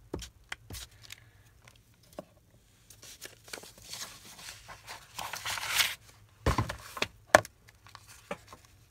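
Paper being handled: sheets rustling and sliding over one another, with a longer crinkling stretch in the middle as a thin receipt-book receipt is picked up and folded. Two sharp taps come about six and a half and seven seconds in, the second the loudest sound.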